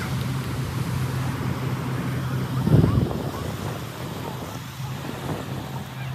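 Small surf breaking on a sandy beach with wind on the microphone, over a steady low hum; a louder rumble of wind about three seconds in.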